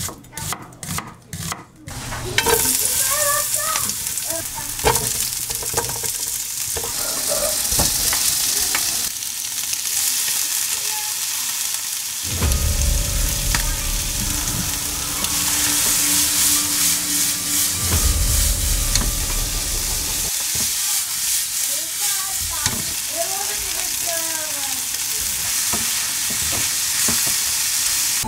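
A few knife strokes through an onion on a wooden cutting board, then fish cake, onion and green onion sizzling in a frying pan as they are stirred with a spatula.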